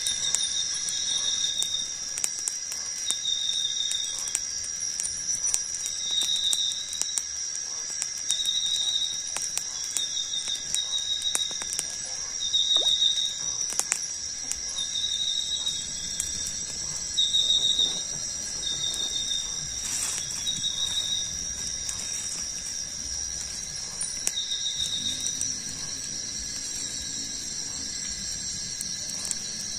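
Rainforest insects droning steadily in high, even tones, with a short high chirping call repeating every one to two seconds. A small wood fire crackles now and then with sharp clicks.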